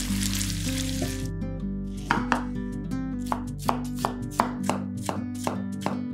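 A chef's knife slicing red bell pepper on a wooden cutting board: about a dozen sharp strokes of the blade against the board, about three a second, starting about two seconds in. Before that, for about the first second, chicken sizzles while it is stirred in a frying pan.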